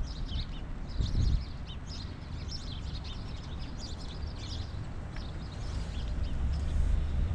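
Small birds chirping, many short high calls in quick succession, over a steady low rumble that grows louder near the end.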